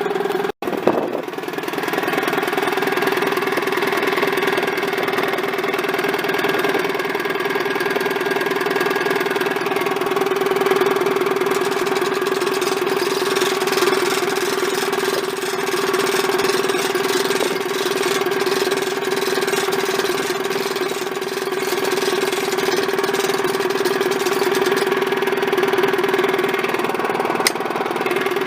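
Sawmill engine running at a steady speed, a constant hum with its overtones. It breaks off for an instant about half a second in, and there is a single click near the end.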